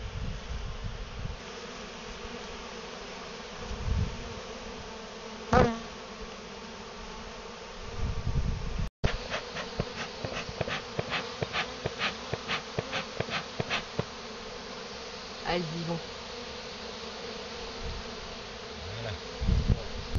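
A mass of honeybees buzzing in a steady hum, with a brief, much louder buzz about five and a half seconds in. A run of quick sharp ticks follows in the second half.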